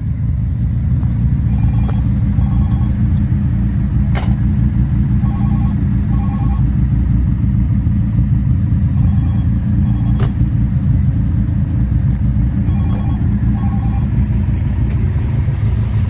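Steady low rumble of a car on the move, engine and road noise together. Two sharp clicks come about four and ten seconds in, and faint short high tones recur every few seconds.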